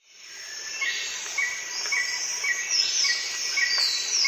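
Birds chirping over a steady chirring of insects, fading in over the first second. A short chirp repeats about twice a second, with a few higher falling whistles.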